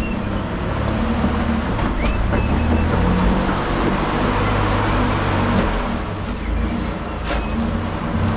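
A four-wheel-drive truck's engine running at low revs as it crawls over rock, steady throughout. A couple of sharp knocks come through, about two seconds in and again near the end.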